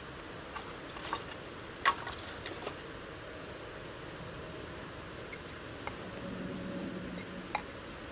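Cookware being handled: a few light clinks and knocks at irregular intervals, the loudest about two seconds in, over a steady hiss.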